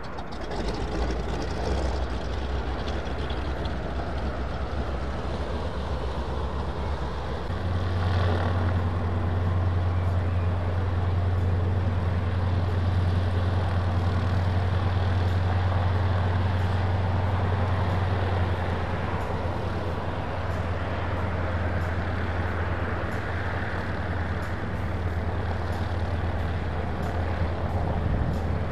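Light aircraft's piston engine and propeller running steadily, stepping up in speed about seven seconds in and holding the higher speed.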